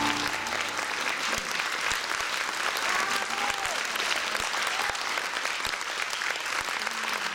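Audience applauding steadily at the end of a song, with the band's last note dying away in the first moment.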